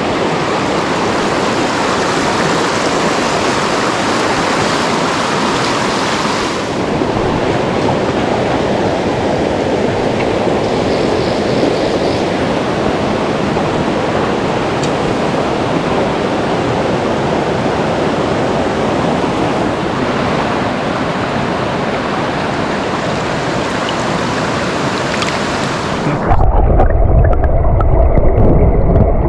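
Rocky mountain stream rushing over boulders: a steady, loud wash of water. Near the end it cuts suddenly to a muffled, deep underwater rumble, heard with the microphone below the surface.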